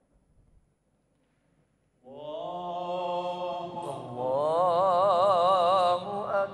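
A man's voice chanting one long, drawn-out melodic phrase, entering suddenly about two seconds in, rising in pitch and then wavering in a fast ornamental trill before it breaks off near the end.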